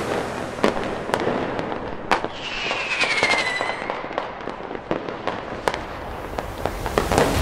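Fireworks display going off: a run of sharp bangs and crackles from bursting shells, with a whistling shell falling in pitch about three seconds in.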